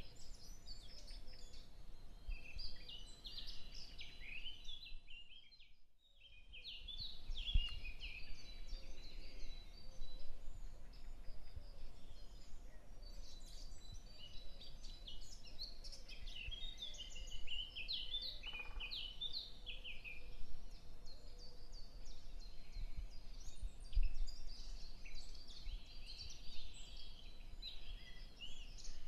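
Small birds chirping and twittering continuously over a faint steady hiss. The sound fades out about five seconds in and comes back up a second later.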